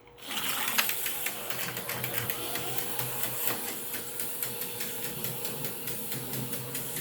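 HO-scale slot cars running around a plastic track: a steady electric-motor whir with rapid ticking, which starts abruptly just after the beginning. The cars are running smoothly.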